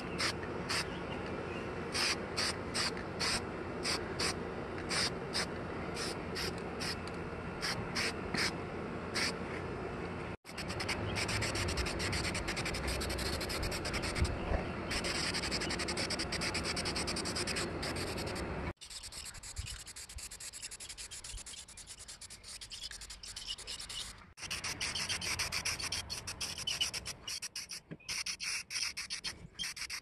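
Aerosol spray paint can hissing in quick short bursts, about two a second, then in longer steady sprays with brief breaks.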